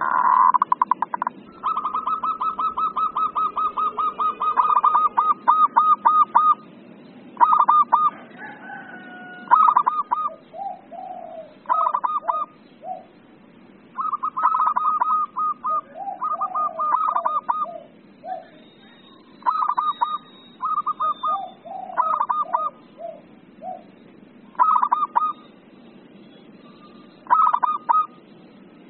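Zebra dove (perkutut) calling in excited bursts: fast trains of short staccato coos broken by pauses, with softer, lower notes between some of the bursts.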